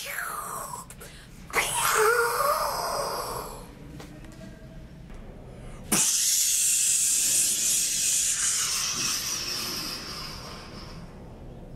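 A person making a sound effect with their mouth: a short voiced sound that wavers in pitch, then, about six seconds in, a sudden loud hiss that fades away over about five seconds.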